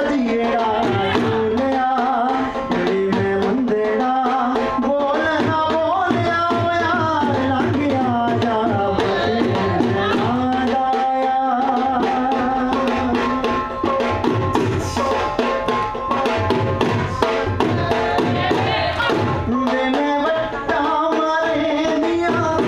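Punjabi folk music for jhumar dancing: a dhol drum beating a steady rhythm under a winding melody.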